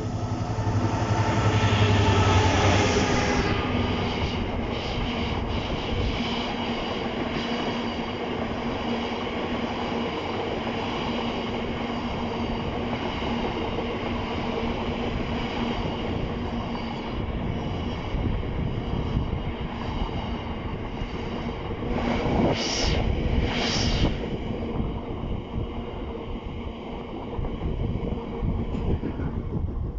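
A train passing on the line, loudest with a deep hum in the first few seconds, then a long, steady rumble of the passing carriages or wagons. Two short louder bursts come about twenty-three seconds in.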